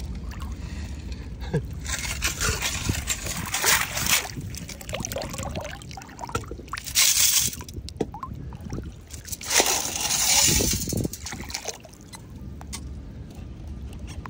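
Long-handled metal sand scoop digging in a shallow riverbed: water sloshes and pours out through its perforated basket in three surges, with wet pebbles rattling against the metal.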